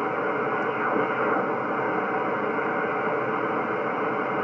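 Steady receiver hiss and band noise from a ham radio transceiver's speaker as the VFO is tuned across the 10-metre band in upper sideband, with faint steady tones in the noise and no voice coming through.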